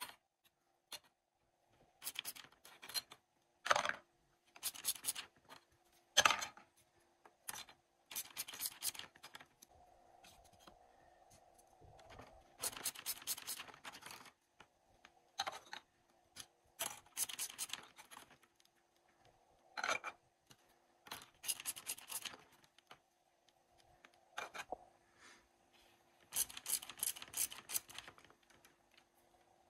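Small plastic toy food pieces being handled and set down in a toy kitchen's plastic dish basket and on its counter: clusters of plastic clicks, taps and scrapes with short pauses between them.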